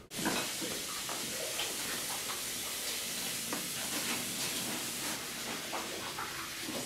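A steady hiss that starts and stops abruptly, with faint scattered clicks.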